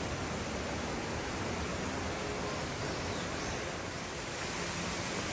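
Steady rushing of falling water from the first fall of Cheonjeyeon Falls, an even hiss with no change.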